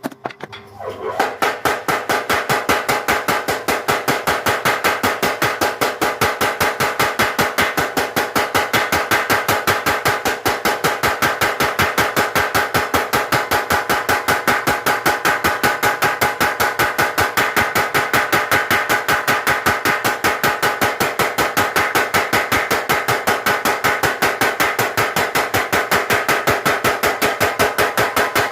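Mechanical power hammer pounding a bar of hot spring steel in a fast, even run of blows, about four or five a second, with a ringing metallic clang on each stroke. The hammer comes up to full speed about a second in.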